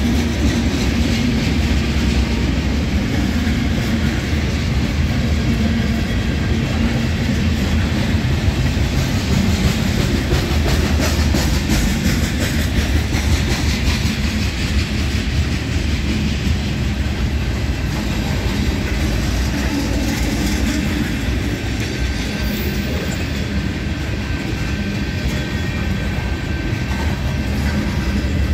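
Freight cars of a long mixed freight train, covered hoppers and tank cars, rolling steadily past with a continuous low rumble and wheels clicking over the rail joints.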